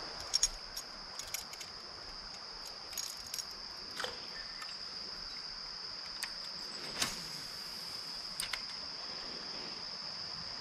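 Insect chorus, a steady high-pitched trill, with scattered light clicks over it.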